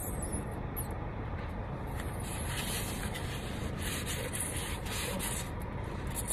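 Rustling and rubbing of a plastic takeout bowl and its packaging being handled, irregular and strongest in the second half, over a steady low rumble.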